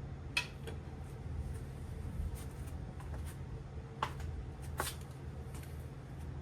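A few light clicks and taps of small parts being handled, over a steady low hum.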